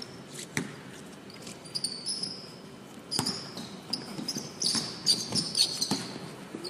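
Basketballs bouncing irregularly on a hardwood court while players' sneakers squeak in short, high squeals, thickest in the second half.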